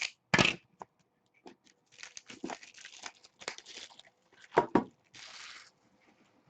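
Packaging of a trading-card box being torn open and handled: crinkling wrapper, a short tearing sound about five seconds in, and a couple of sharp knocks from the box.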